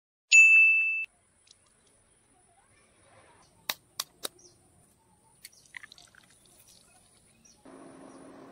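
A short loud electronic beep, then three sharp taps of a knife blade cracking an egg shell, followed by a few small cracking ticks. Near the end a steady sizzle of an egg frying in oil on a non-stick pan begins, with a low hum under it.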